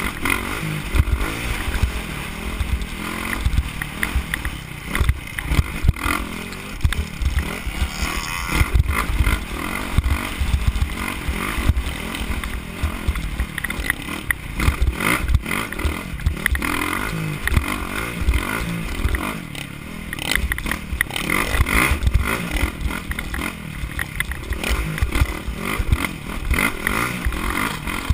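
Off-road motorcycle engine running hard at speed, its revs rising and falling, with wind buffeting the microphone and the bike rattling over rough dirt.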